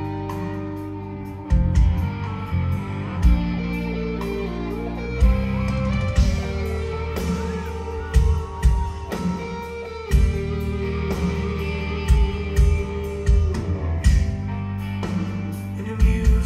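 Live rock band playing: electric guitars and bass holding long notes over irregular drum kit hits.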